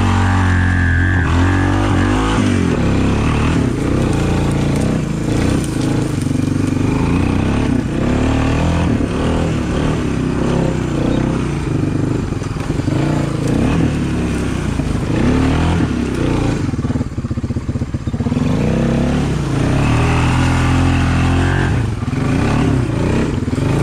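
Honda 300 ATV's single-cylinder four-stroke engine running under load, its revs rising and falling over rough, wet ground, with a brief drop in revs about three quarters of the way through.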